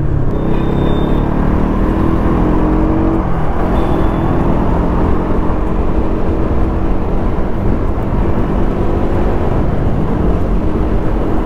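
Motorcycle engine running steadily while riding, its pitch dropping briefly about three seconds in as the throttle eases, then holding steady again.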